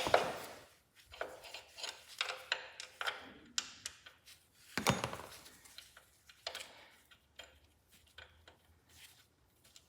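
Irregular metal taps and clinks of a steel punch being worked against a transmission bracket and frame to line up the bolt holes, with the loudest knock about five seconds in and the taps thinning out toward the end.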